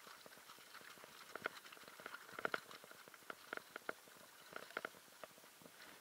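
Mountain bike rolling down a rough, stony trail: irregular clicks and knocks as the tyres strike loose rocks and the bike rattles over them, the loudest about two and a half seconds in.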